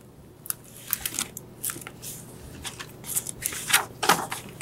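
Hardcover picture book in a plastic library jacket being opened and its pages turned: a run of short crinkles and paper rustles, loudest near the end.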